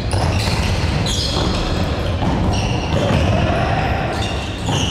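Futsal play on a wooden sports-hall court: the ball bouncing and being kicked, and shoes squeaking on the floor in several short, high squeals, echoing in the large hall.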